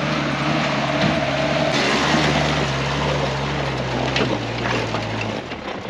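An old Toyota jeep's engine running at low speed as it crawls over mud and loose stones, with scattered clicks of stones under the tyres. The engine sound cuts off shortly before the end.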